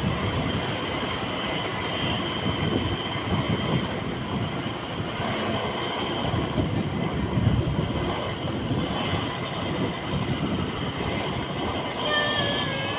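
Steady road and engine noise from a vehicle travelling along a town street, with a faint high whine throughout and a short wavering high tone near the end.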